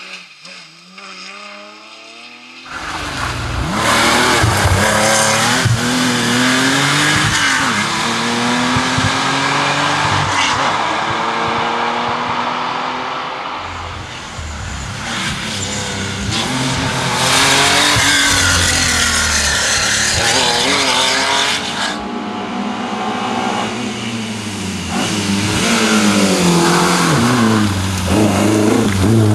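Historic rally cars at full effort on a tarmac stage: a Porsche 911 and then a Ford Escort Mk1, their engines revving hard, their pitch climbing and dropping again and again through gear changes and lifts for corners. The sound jumps abruptly to a loud close pass about three seconds in.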